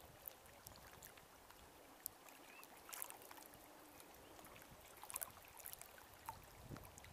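Faint lapping of small waves against a rocky bank, with a few light scattered clicks.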